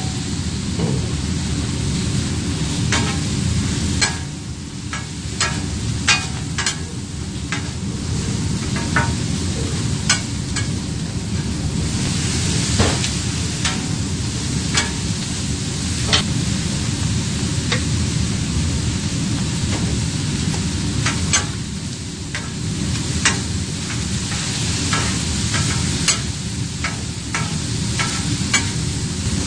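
Gopchang and cabbage sizzling on a flat griddle while being stir-fried with two metal spatulas. The sizzling is steady, and the spatulas scrape and clack against the griddle plate in short, irregular clicks.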